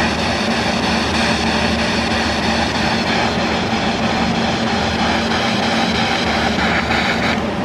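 Handheld spirit box, a radio scanner that sweeps through the bands, giving out loud continuous static with steady tones under it. It cuts off abruptly near the end.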